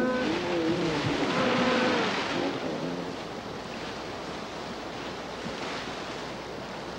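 Rushing white-water river rapids, a steady hiss that eases off after about three seconds. Over the first three seconds, several held pitched notes sound together and fade out.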